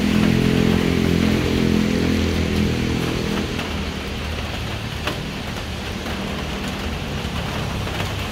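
Steady rain falling on a wet road, with a motor vehicle's engine running close by; the engine is loudest in the first few seconds and fades away, leaving the rain.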